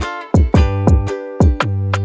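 Background music with a steady beat: plucked strings over bass, with sharp percussive hits about twice a second.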